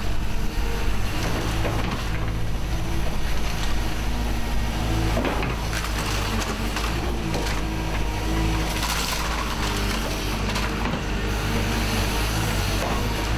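Hyundai HX180 excavator's diesel engine and hydraulics running steadily under load, with a few knocks and scrapes of metal as the car body is worked in the VRS dismantling attachment.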